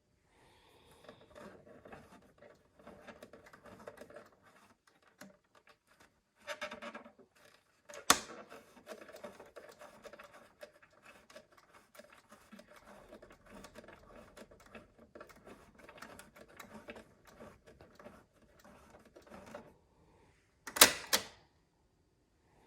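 Push buttons on a 1956 Emerson Model 919 vacuum-tube AM radio being pressed: a sharp clack about 8 seconds in and a loud double clack near 21 seconds. Between them the radio gives faint crackling, as between stations.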